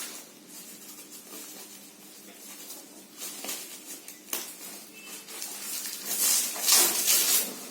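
Rustling and handling noise of packaging as a satellite speaker is taken out of its wrapping: irregular crinkles and scrapes, loudest in a burst about six seconds in.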